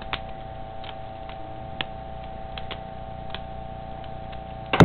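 Homemade Lego butterfly knife being twirled by hand: irregular light plastic clicks as the brick-built handles swing and knock together, with a louder clatter right at the end. A steady electrical hum sits underneath.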